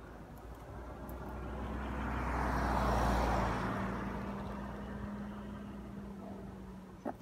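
A car passing by on the road, growing louder to a peak about three seconds in, then fading away.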